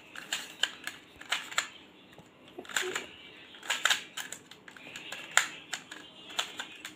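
Plastic pyramid-shaped puzzle cube being twisted by hand: its layers turn with an irregular run of light plastic clicks and clacks, several in some seconds and fewer in others.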